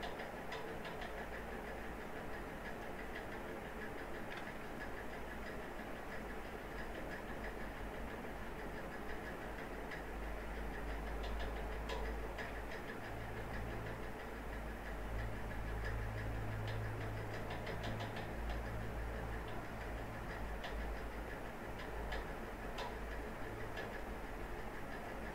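Scattered light clicks of computer keyboard keys being typed, over a steady low hum and hiss.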